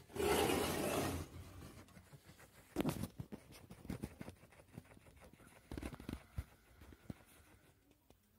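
A loud rustle for about the first second, then a run of short scratches and scrapes as a chihuahua paws and digs at the blanket on a bed.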